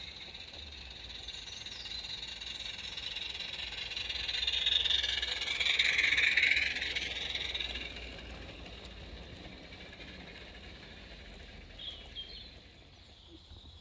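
A 16mm-scale live-steam garden railway train runs past close by: the locomotive and its long rake of coaches make a hissing rattle on the rails. It grows louder over the first few seconds, peaks as the coaches go by, then fades away.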